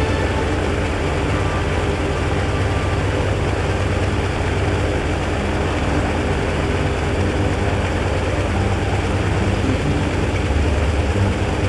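Antonov An-2's nine-cylinder radial engine and propeller running steadily at low revs.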